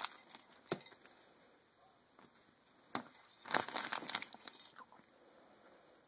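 A cat batting and pushing at a tablecloth: cloth rustling and crinkling, with a sharp tap under a second in and another about three seconds in, then about a second of busier rustling.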